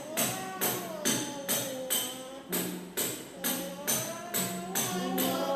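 Music with a tambourine-like jingle striking in an even beat about twice a second under a gliding melody line.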